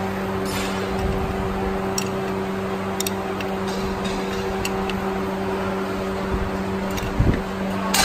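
Steady mechanical hum from workshop machinery, under scattered light metallic clicks as a combination wrench is worked around the top nut of a shock absorber strut, with a short dull knock about seven seconds in.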